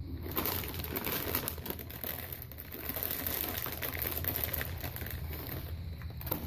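Crinkly foil Cheetos snack bag crackling and rustling as it is handled and rummaged in. The crackling starts just after the beginning, runs as a dense stream of small crackles and stops sharply near the end, over a low steady hum.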